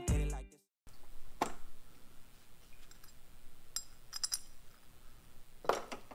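Background music cuts off in the first half second. After a brief gap come a handful of faint, scattered clicks and clinks as gloved hands handle plastic clips and parts around the car's radiator, the loudest click near the end.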